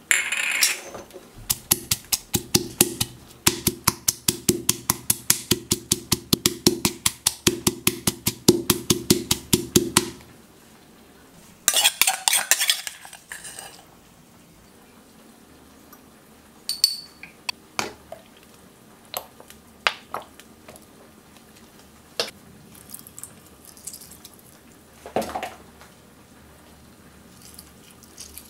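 Bird's eye chilies being pounded with a pestle in a stone mortar: rapid, even strikes for about eight seconds. Then a metal spoon scrapes round the mortar, followed by scattered light knocks and clicks.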